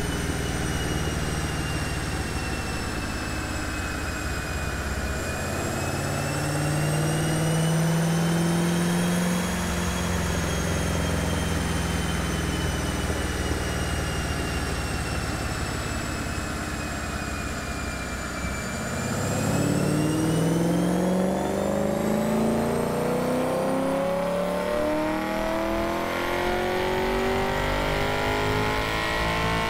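LS V8 engine of a swapped 350Z running in gear on a chassis dyno, with a high whine that rises and falls with wheel speed. The speed eases up and back down, dips about 18 seconds in, then climbs steadily through the rest.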